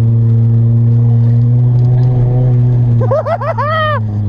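A car engine running hard at steady revs. About three seconds in there is a brief run of high, wavering rising-and-falling sounds.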